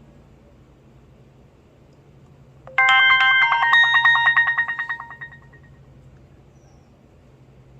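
HTC Desire 530 ringtone: a short burst of bright chiming tones in quick succession, starting about three seconds in and fading out after about two seconds.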